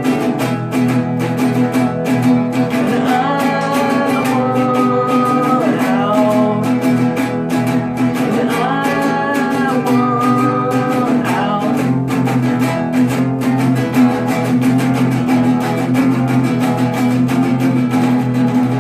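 An acoustic guitar plays and strums steady chords, and a voice sings two drawn-out phrases over it, one a few seconds in and one near the middle.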